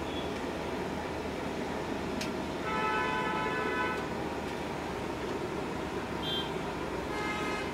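Potato pakoras deep-frying in a large kadai of hot oil, a steady sizzle under street noise. A vehicle horn sounds for just over a second about three seconds in, and again briefly near the end.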